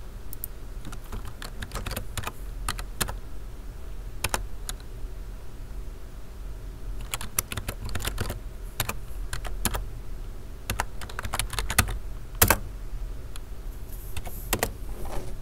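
Typing on a computer keyboard: irregular key clicks in short runs with pauses, one louder keystroke about twelve seconds in, over a steady low hum.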